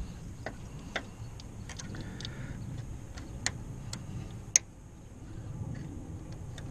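Scattered sharp plastic clicks and taps as hands work a halogen headlight bulb and its wiring connector loose from the back of the headlight housing, over a low rumble.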